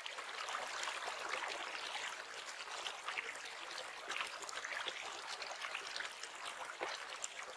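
Flowing river water: a steady rushing hiss with many small splashes in it, swelling in at the very start.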